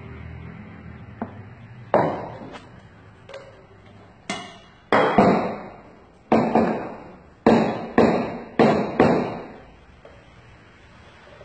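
Metal milk pitcher knocked against the counter again and again: about ten sharp clanks over some seven seconds, each ringing briefly, the usual tapping that settles steamed milk and knocks out its bubbles before pouring.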